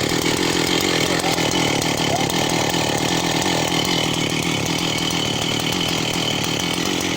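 Two-stroke chainsaw running steadily at high revs under load, ripping a log lengthwise into boards.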